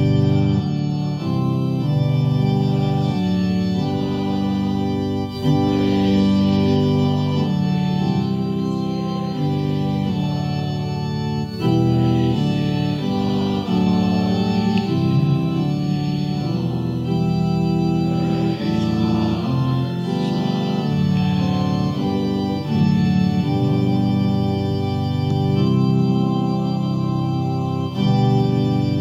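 Organ playing the offertory music in sustained, held chords that change every second or two.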